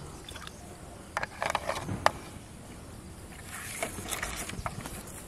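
Plastic bottle and containers being handled: a few sharp clicks and knocks about a second in, then crackly rustling of plastic near the end.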